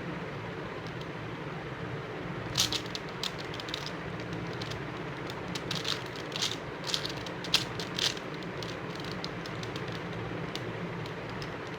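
Plastic 5x5 Rubik's cube being turned by hand: a run of quick clicks and clacks of layers snapping round, from about two and a half to eight seconds in, over a steady background hiss.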